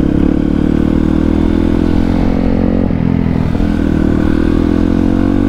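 Dirt bike engine running under way at a steady cruise. It eases off slightly about halfway through, then pulls again and rises a little near the end.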